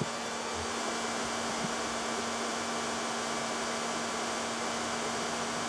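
Handheld hair dryer running steadily: a constant rush of air with a steady hum. It is warming the car's fender panel so the paint doesn't crack and the metal pushes out more easily during paintless dent repair.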